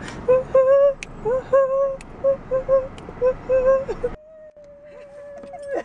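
A woman singing a quick sing-song run of wordless syllables on nearly one note, then holding one long note near the end.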